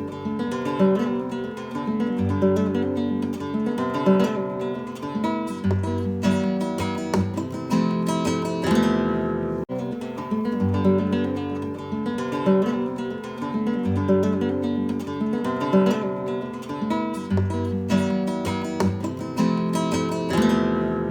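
Acoustic guitar with a Brazilian rosewood back being played solo in a sound test: strummed and picked chords in a passage that repeats about every ten seconds, each time closing on a long ringing chord.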